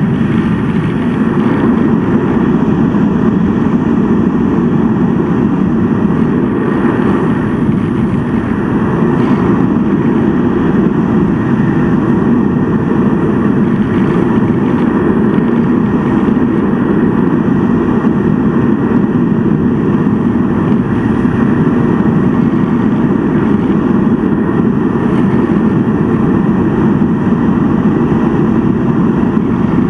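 Steady rushing airflow noise, with the hum of the model's drive mixed in, picked up by a camera riding on a radio-controlled model plane in flight.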